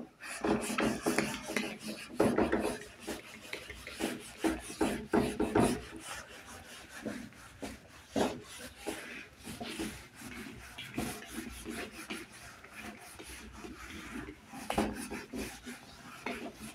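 Handwriting on a writing surface: many short, irregular scratching strokes.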